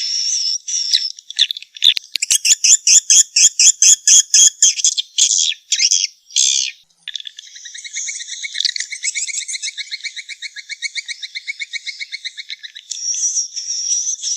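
Recorded swiftlet calls, the kind played as a lure sound in swiftlet nest houses. High twittering gives way about two seconds in to a run of sharp repeated chirps, about three a second. From about seven seconds a long, fast, buzzy trill runs until twittering returns near the end.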